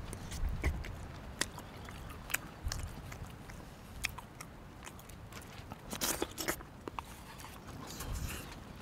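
A person eating hot stew close to the microphone: chewing, with scattered sharp clicks and scrapes, a louder cluster of them about six seconds in.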